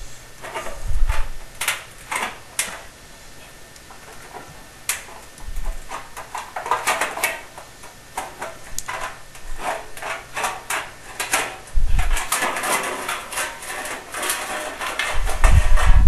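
Tin snips cutting 3-inch sheet-metal flue pipe: a run of crisp metallic snips and crunches as the blades bite through the tin, some in quick clusters. A few dull thumps, loudest near the end.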